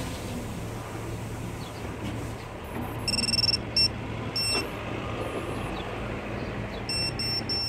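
Short, high electronic beeps in clusters, about three seconds in and again as a quick run near the end, as the micro FPV quadcopter is powered up and binds to its radio. A steady low hum runs underneath.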